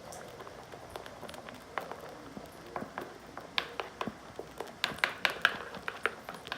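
Sticky body-wash slime being mixed and worked: irregular small wet clicks and taps, sparse at first and coming faster in the second half.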